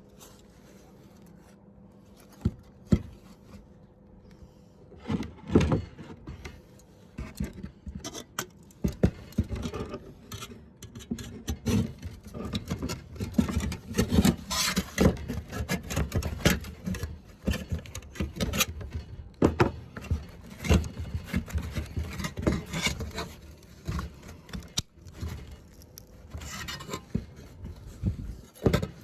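Irregular scraping, rubbing and knocking of metal pieces being handled, with sharp clinks scattered through it.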